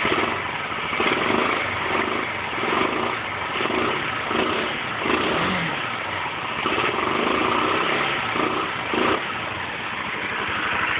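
2012 CCW Misfit motorcycle engine running through its stock exhaust while warming up after a hard start, its sound swelling and easing about once a second.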